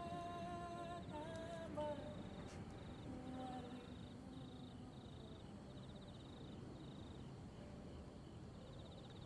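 Insects chirping in short repeated trains, under long held, hum-like soundtrack notes that bend in pitch, fade out after about four seconds and return at the very end. A faint click comes about two seconds in.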